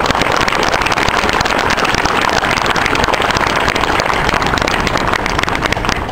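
Crowd applauding, a dense steady patter of claps that thins out near the end.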